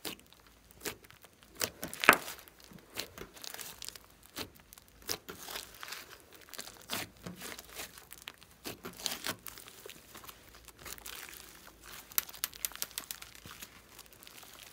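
Hands kneading and stretching a big lump of thick glossy slime mixed with clay and glitter, giving a run of irregular sticky crackles and clicks, with one sharper pop about two seconds in.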